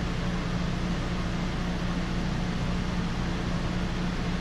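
Metal lathe running steadily, a low motor hum with an even hiss over it.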